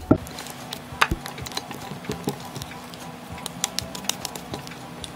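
A spatula stirring and slapping sticky, freshly microwaved glutinous rice dough in a glass dish: an irregular run of sticky smacks and clicks. Soft background music plays under it.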